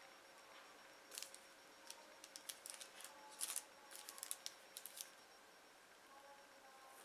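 Faint crinkling of plastic wrap and soft ticks as cut cookie dough pieces are lifted off it and set down on parchment paper: a scatter of short crackles between about one and five seconds in.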